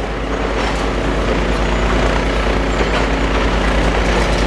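Demolition excavator's diesel engine running steadily, with a few faint knocks.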